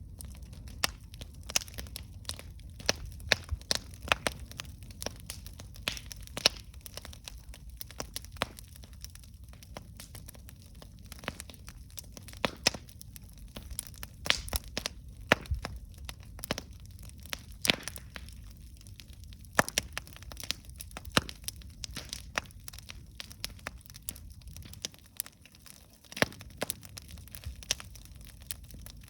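Wood campfire burning, with sharp irregular pops and crackles many times a second over a low rumble of the flames.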